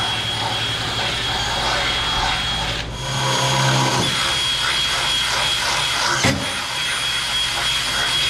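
Cordless drill motor running in long, steady stretches, with a short pause about three seconds in and a single knock a little after six seconds.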